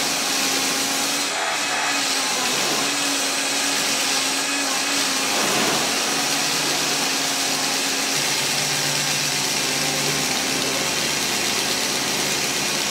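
Benchtop drill press running steadily, spinning a bristle-backed flap sanding wheel while a wooden block is held against it: a constant motor whir under the rushing of the flaps brushing the wood.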